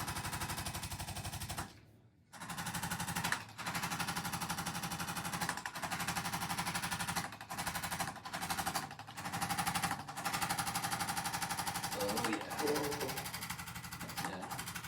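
Electric percussion massager hammering rapidly and evenly. It cuts out for about half a second near the start and dips briefly several times further on.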